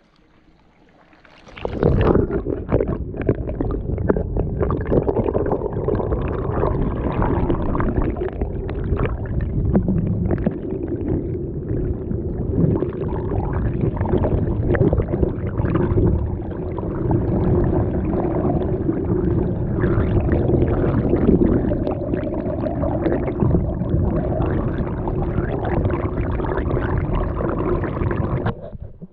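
Water swirling and flowing through a homemade hydrocyclone's bottom trap, heard through a camera submerged in the water inside the trap. It starts about a second and a half in, runs steadily and stops suddenly just before the end.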